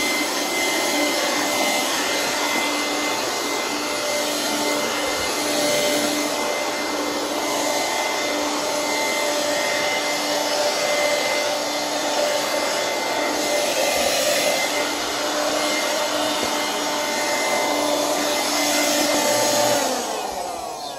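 Hoover vacuum cleaner running steadily with a motor whine. It is switched off near the end, and its motor winds down in falling pitch.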